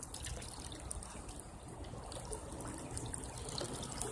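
Creek water trickling and flowing steadily, faint, with a few small ticks over it.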